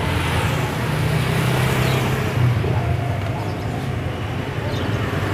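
Steady low rumble of running motor vehicles.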